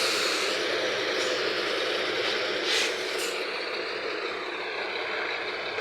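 Steady noise of vehicle engines running in congested traffic on a rough road, with a couple of short rattles about halfway through.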